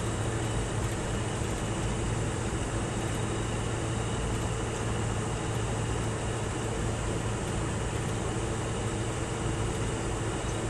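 Scania R620's V8 diesel running steadily at constant engine speed on a climb, heard from inside the cab, with tyre and road noise from the snow-covered road underneath.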